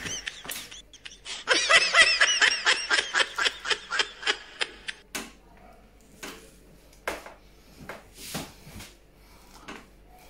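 A man laughs in a quick run of ha-ha pulses that fades over about three seconds. After that come scattered soft clicks and crunches as he bites at the banana peel with his teeth.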